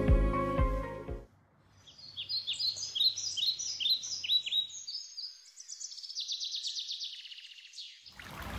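Soft background music fading out in the first second or so, then birds chirping: a run of short high falling chirps, followed by a fast trill of repeated notes near the end.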